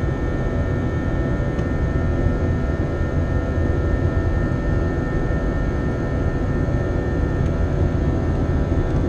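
Airbus A321 cabin noise while climbing after takeoff: the steady rumble of the jet engines and rushing air, with a few faint steady whining tones over it.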